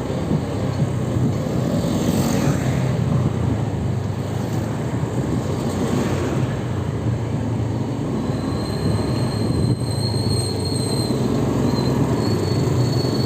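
Steady rumbling vehicle running noise, with a faint thin high-pitched squeal coming in about two-thirds of the way through.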